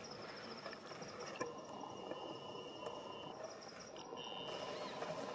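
Faint insect trilling in the bush: a steady high trill with a fine pulsing ripple, joined twice in the middle by a lower, steady trill.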